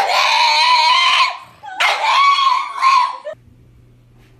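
Black pug giving two long, high-pitched screaming cries of about a second and a half each, with a short pause between them.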